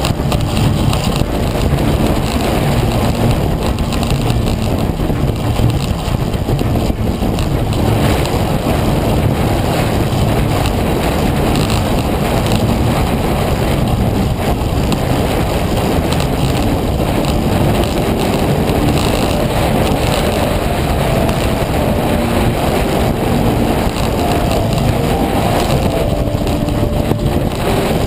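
Steady rush of wind buffeting the microphone of a bike-mounted camera on a track bicycle racing at speed around a wooden velodrome.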